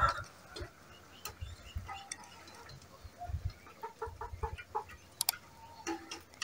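Chickens clucking, with a quick run of short clucks about four seconds in, and a few light clicks.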